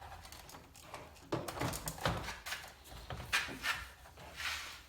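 Hard plastic trim and switch-housing parts knocking, clicking and rubbing at an irregular pace as a power-window switch assembly is worked into a Chevy Impala door panel.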